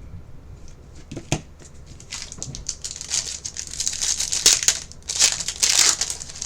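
Plastic trading-card pack wrapper crinkling and tearing as it is opened and the cards are handled, after a single sharp click about a second in; the crinkling grows busier and louder over the last four seconds.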